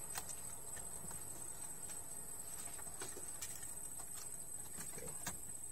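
Faint, scattered clicks and taps of plastic parts being handled inside an opened Epson L360 printer as its flex cable is fitted, over a steady high-pitched insect drone.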